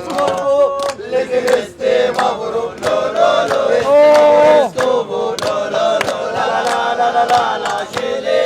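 Several men singing a chanted refrain together in long held notes, with frequent sharp percussive hits throughout.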